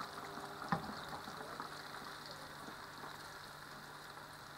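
Hot oil sizzling steadily around a flat tapioca-coated chicken and shrimp patty deep-frying in a pan, with two light knocks near the start.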